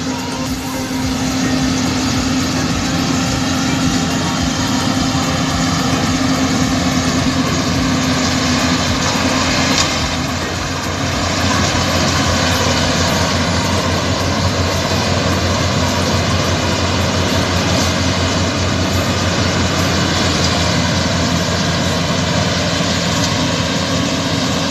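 Crawler rice combine harvester running steadily as it cuts through a ripe paddy: a constant engine hum under the machinery noise, with a slight dip in level about ten seconds in.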